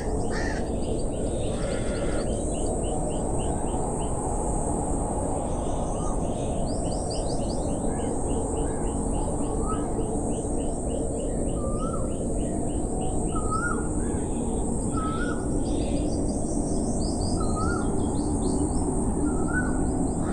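Several birds calling: a short hooked call repeated about once a second, with rapid strings of high chirps. Underneath runs a steady low rushing noise and a constant high hiss.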